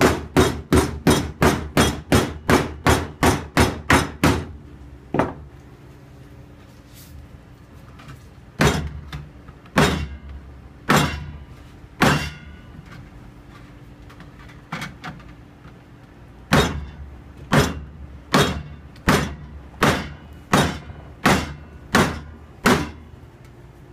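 Hammer blows on copper sheet, each strike ringing briefly. A quick run of about four blows a second stops about four seconds in, then come a few scattered single blows, then a steady series of blows a little under a second apart near the end.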